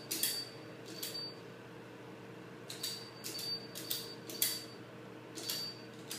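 Security keypad being punched in to enter an access code: a string of irregularly spaced button presses, each with a short high beep, over a faint steady hum.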